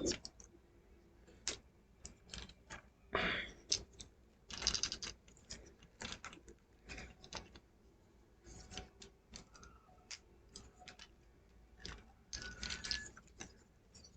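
Plastic model-kit parts being handled and snapped together: irregular small clicks, taps and rustles of hard plastic pieces.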